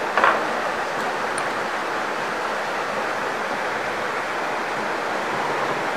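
Steady rushing of flowing water, an even noise that does not change, with one short louder burst just after the start.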